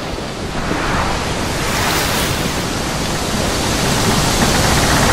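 Loud rushing noise like breaking surf. It swells about a second in and grows louder toward the end.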